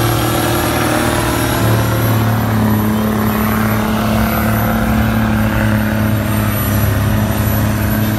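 Diesel engine of a pulling truck running hard under load as it drags the weighted pulling sled, a loud steady deep drone that keeps the same pitch.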